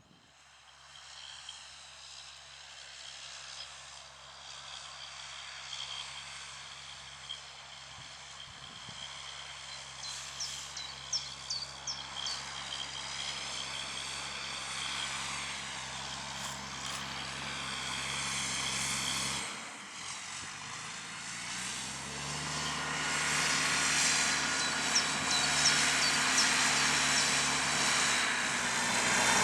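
Fendt 820 Vario tractor's six-cylinder diesel engine running steadily under load while ploughing, growing louder as it comes closer. About two-thirds of the way through, the engine note dips briefly and then settles at a higher pitch. A few light clicks come through in the middle and near the end.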